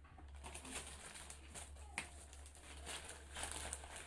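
Clear plastic packaging bags crinkling and rustling as they are handled, in irregular crackles with one sharp click about two seconds in. A steady low hum runs underneath.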